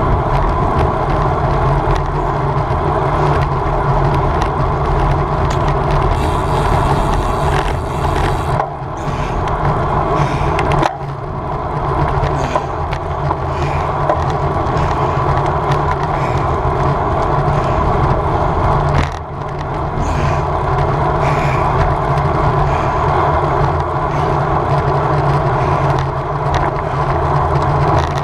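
Wind rushing over the microphone and road rumble from a road bicycle ridden at speed, steady and loud, easing briefly about nine, eleven and nineteen seconds in.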